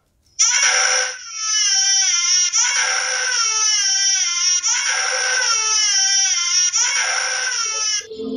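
A baby crying: about five long, wavering, high-pitched wails one after another, cutting off abruptly near the end.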